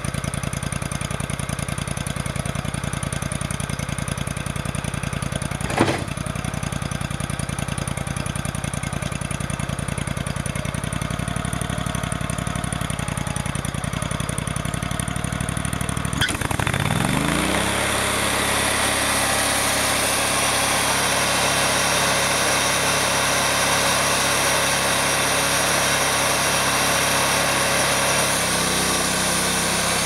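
Wood-Mizer portable sawmill's gas engine idling, with a metal clank about six seconds in. Just past halfway it revs up over about a second to cutting speed and runs on steadily and louder, the band blade spinning.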